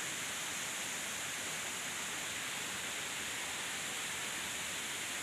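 Steady rushing of a shallow mountain stream running over stones.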